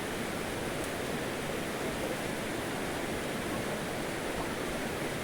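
Steady rushing of flowing water, even and unbroken, with no distinct events.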